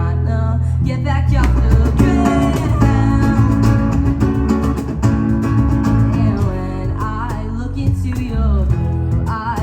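Live band performance: guitars and a strong bass line with a singer's voice, played loud in a small venue.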